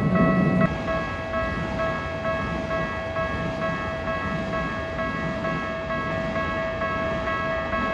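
Japanese railway level-crossing alarm ringing its steady electronic "kan-kan" bell tones. Under it, the rumble of a passing train cuts off just under a second in.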